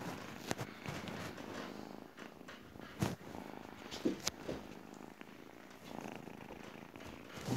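Tabby kitten purring steadily close up, with a few short knocks and rustles, the loudest about three and four seconds in.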